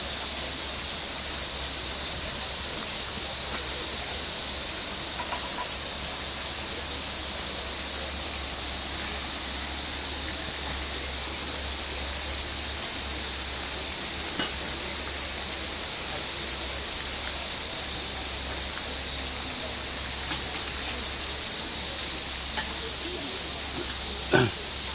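A steady, high-pitched hiss of a summer cicada chorus. There is a single knock near the end.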